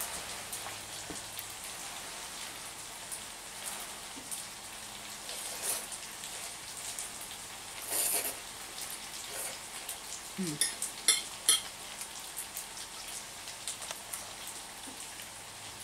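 Metal fork clinking and scraping against a ceramic dinner plate of linguine, a quick run of sharp ringing clinks about ten to eleven seconds in, over a steady hiss. A short slurp of pasta about eight seconds in.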